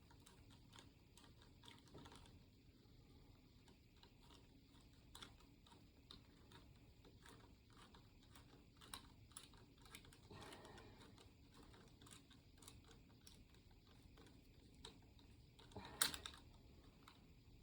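Faint, irregular small clicks of a worm-drive hose clamp being unscrewed with a nut driver, with a louder clack about sixteen seconds in.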